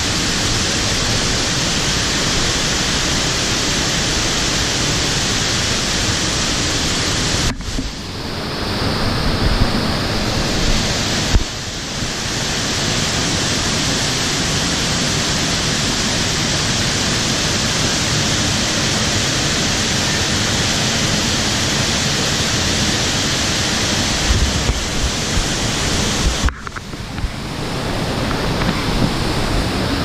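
Steady, loud rush of a waterfall and a fast-flowing stream. The sound dips briefly twice, about a third of the way in and again near the end, with a few low thumps around the first dip.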